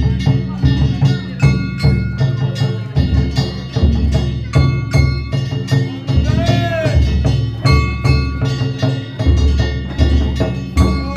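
Danjiri festival music (danjiri bayashi): a taiko drum beaten in a steady, dense rhythm with metal hand gongs clanging, their strikes ringing on over one another. A rising-and-falling tone cuts through a little past halfway.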